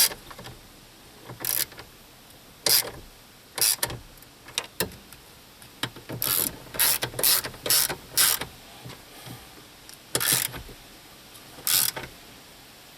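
Hand socket ratchet clicking in a series of short bursts with pauses between them, as the nuts on the underside of a steering column are tightened down.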